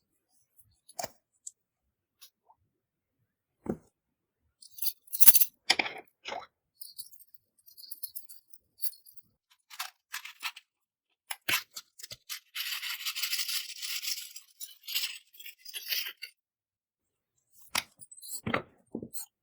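Scattered clicks and taps from cosmetics and their containers being handled and mixed with slime. A longer stretch of scraping or crackling comes about two-thirds of the way in.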